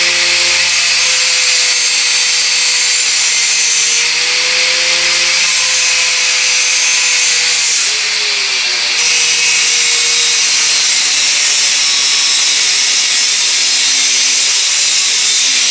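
Handheld angle grinder with an abrasive disc cutting into metal webbing on a steel tube frame: a loud, steady hissing grind. The motor's whine sags and picks back up as the disc is pressed in and eased off, most clearly about halfway through and near the end.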